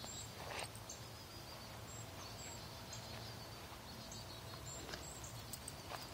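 Faint outdoor ambience: a low steady hum with scattered short, faint high chirps of distant birds, and a few soft knocks, most of them near the end.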